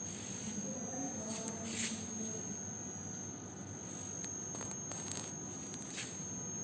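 Indoor room tone with a steady thin high-pitched whine, faint background voices in the first couple of seconds, and a few soft clicks.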